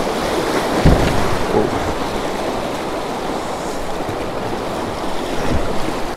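Shallow river rapids rushing around a kayak, a steady noise of fast water over rocks, with a low thump about a second in and another near the end.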